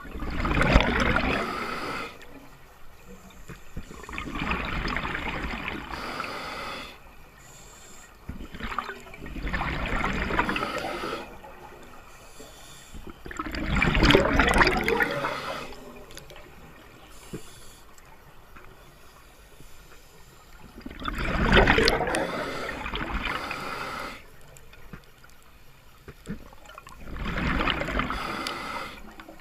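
A scuba diver's regulator exhaling underwater: six bursts of bubbling gurgle, each about two seconds long, come every four to seven seconds, with quieter stretches between breaths.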